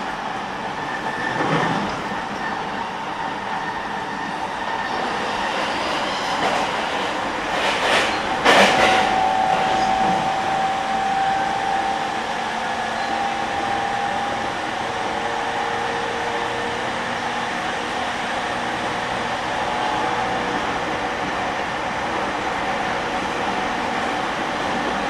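E231 series electric multiple unit train running, a steady rumble of wheels on rail. It has a couple of sharp knocks, the loudest about eight and a half seconds in, followed by a steady whine for a few seconds.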